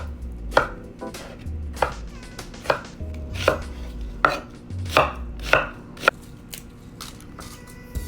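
Knife chopping food on a cutting board: separate, sharp strokes, roughly one a second, sometimes a little quicker.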